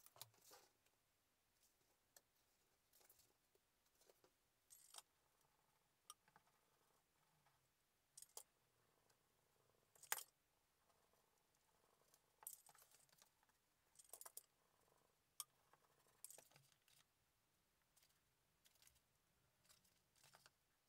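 Faint, scattered scrapes and light clicks as thin card is scored along a wooden ruler and handled, every second or two, with one sharper click about halfway through.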